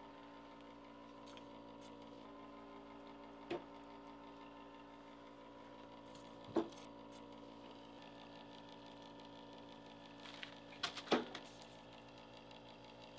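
A few short knocks and clinks of metal tongs handling a lit coal briquette, one about a third of the way in, one about halfway, and a louder cluster near the end as the briquette is set down into its holder, over a faint steady hum.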